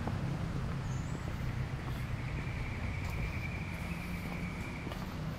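Steady low rumble with an insect's thin, even high-pitched trill. The trill starts about two seconds in and stops about three seconds later.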